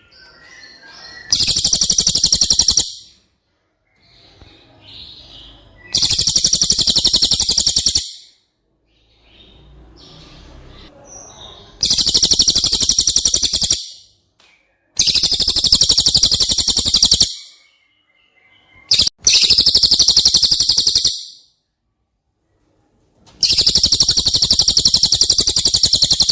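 Cililin bird singing: six high, rapid trilled phrases of about two seconds each, separated by pauses of a few seconds.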